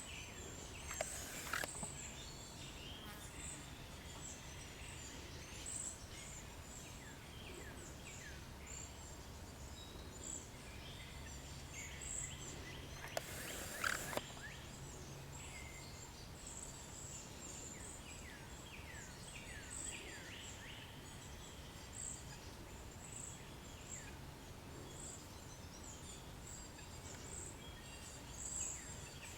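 Small songbirds calling: many short, very high, thin notes repeated throughout, mixed with lower downslurred chirps, over a faint steady low hum. Two brief bursts of noise break in, about a second and a half in and near the middle.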